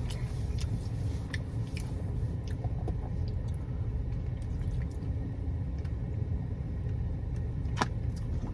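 Steady low rumble with scattered faint clicks and one sharp click near the end.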